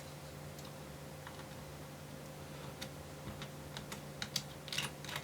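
Light clicks and ticks of a small Phillips screwdriver working the metal hinge screws out of a laptop's hinge, sparse at first, then a quick cluster of sharper clicks about four to five seconds in.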